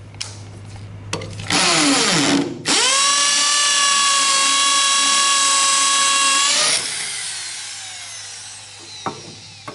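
Electric drill in percussion (hammer) mode driving a cobalt and tungsten carbide-tipped multi-purpose bit into stone. A rough grinding burst comes first, then a steady high-pitched hammering drone for about four seconds. The drill then winds down with a falling pitch, with a couple of handling clicks around it.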